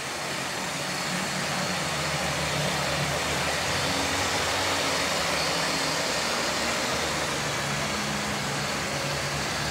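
OO gauge model train running past on the track, propelled by a Lima Class 60: a steady rolling noise of wheels on rails with a low motor hum, growing a little louder over the first few seconds.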